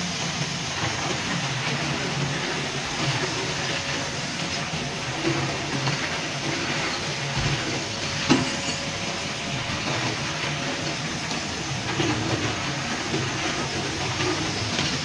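Steady mechanical running noise of workshop machinery, with a faint steady hum underneath and a few light clicks, one sharper click a little past the middle.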